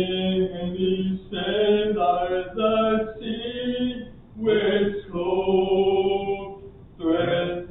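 Voices singing a slow hymn, holding each note from half a second to more than a second, in phrases with short breaks between them.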